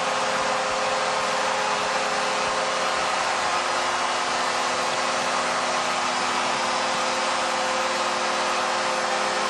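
Arena goal horn sounding one long steady note over a cheering crowd, signalling a home-team goal; the horn cuts off near the end.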